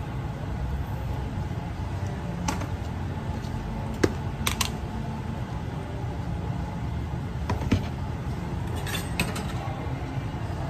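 Steady low hum of kitchen background with scattered light clicks and taps of utensils and crockery being handled.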